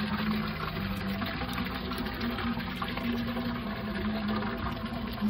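Water pouring in a steady stream from a clay pot into a stone wishing well, splashing on the water below. Low sustained tones run underneath, changing pitch every second or so.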